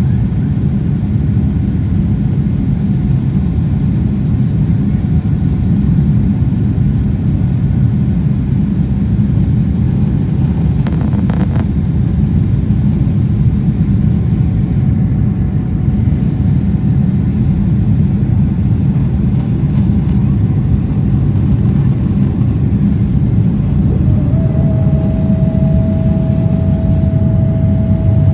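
Steady, loud low rumble, with a steady whining tone that comes in about 24 seconds in and holds to the end.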